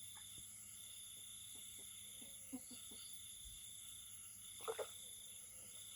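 Frogs calling: a faint, steady high-pitched chorus, with a few short croaks and a louder double croak near the end.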